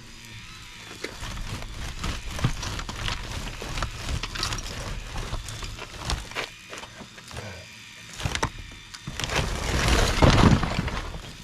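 Cinder block wall being demolished: scattered knocks and cracks of blocks breaking loose, then, about nine seconds in, a long, loud crash as a section of the wall collapses into rubble.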